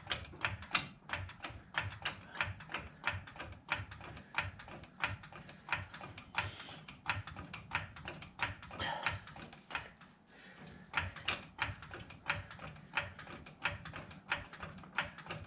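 Harbor Freight hydraulic floor jack being pumped by its handle to raise a car: a steady run of clicks, about two to three a second, with a short pause around ten seconds in.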